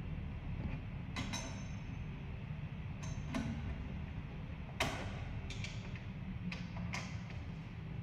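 About six sharp clicks and light knocks at uneven intervals, the loudest a little before the middle, over a steady low hum.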